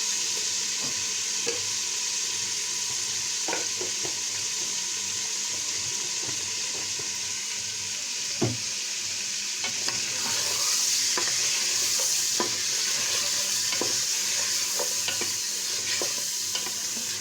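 Goat meat being browned in hot oil in a pot, sizzling steadily, with a spoon clicking and scraping against the pot as it is stirred. The sizzle grows louder about ten seconds in.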